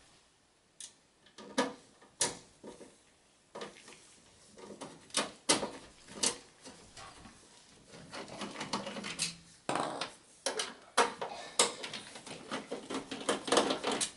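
Phillips screwdriver working the screws out of a desktop PC's rear CPU fan shroud, with sharp irregular clicks and knocks of metal against the steel case and plastic shroud. The clicking grows denser and more rattling in the second half.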